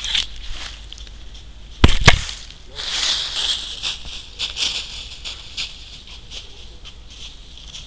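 Two loud knocks on the trail camera about two seconds in, then footsteps crunching through dry fallen leaves as a child runs off, fading after a few seconds.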